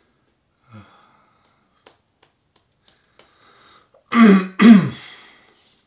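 A man clears his throat twice, loudly, about four seconds in, after a soft hum or breath about a second in.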